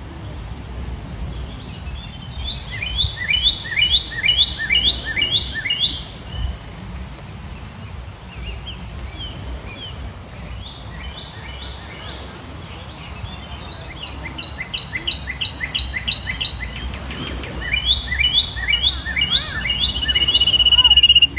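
A bird calling in runs of quick repeated chirps, each run a series of short falling notes at about two to three a second, coming three or four times. A thin steady high tone sounds near the end.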